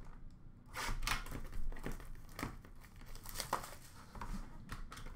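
Plastic wrapping crinkling and tearing in irregular crackles as a sealed hockey card box is cut open and unwrapped.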